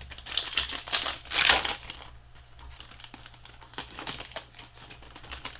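A plastic trading-card pack wrapper crinkling as it is torn open, loudest in the first two seconds, then lighter rustling and clicks.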